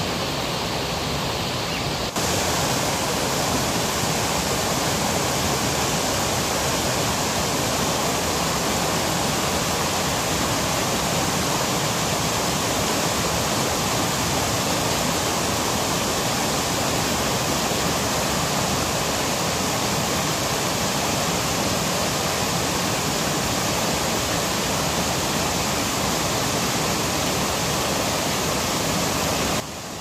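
Water rushing steadily over a stream's small waterfall cascades and rock ledges. About two seconds in it suddenly gets louder and fuller as the view moves close to a cascade, and it drops back just before the end.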